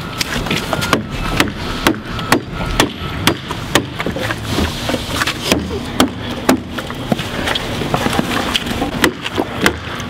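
Claw hammer striking a dented double-walled plastic gas can, hammering the dent out: repeated sharp blows, about two a second, with a short pause midway.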